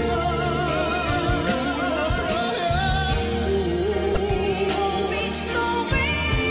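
A woman singing a slow song with long held notes and wide vibrato, over a band accompaniment with bass and drums.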